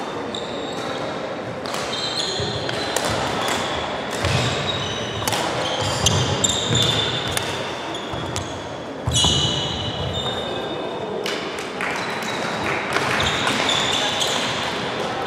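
Badminton rally on a wooden sports hall court: rackets sharply striking the shuttlecock, and players' shoes squeaking and stepping on the floor, echoing in the large hall.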